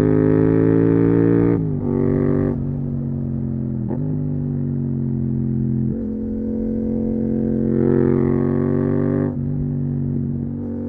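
Yamaha MT-07's parallel-twin engine running through a full Akrapovic titanium exhaust while riding. The note rises and falls with the throttle, broken about four times by short dips, as at gear changes.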